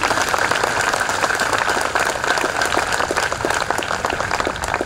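Audience applauding: the dense, steady clapping of many hands.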